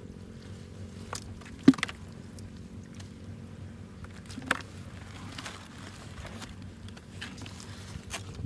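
Handling noises as caught eels are dealt with at a plastic bucket: a sharp knock a little under two seconds in, another about four and a half seconds in, and light scattered ticks, over a steady low hum.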